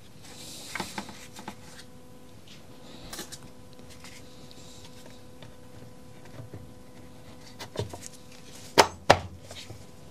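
Plastic housing halves of a Makita UC3541A electric chainsaw being fitted together by hand: scattered light clicks and rubbing of plastic, then two sharp plastic knocks about a third of a second apart near the end.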